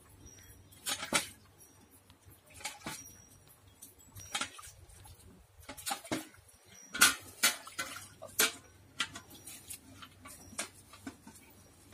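Milk squirting by hand into a steel milk can from a cow's teats: short, sharp squirts at irregular intervals, the loudest about seven seconds in.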